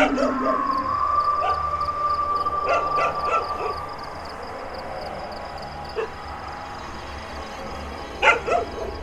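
Dog barking: several short, separate barks, the loudest two close together near the end. Under the first barks a held organ-like music tone runs on and fades out about four seconds in.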